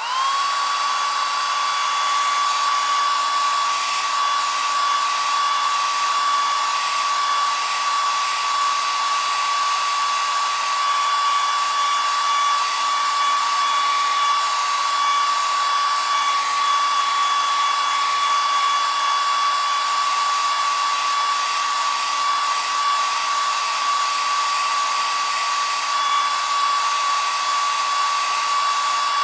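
Electric shaver switched on and running steadily: an even, high-pitched motor buzz that rises in pitch for a moment as it spins up at the start, then holds constant.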